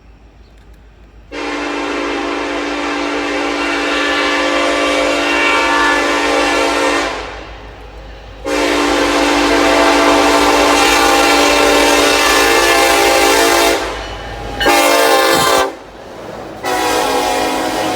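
Freight locomotive air horn sounding the grade-crossing signal: two long blasts, one short, and a final long blast that is still sounding at the end, over a low steady rumble.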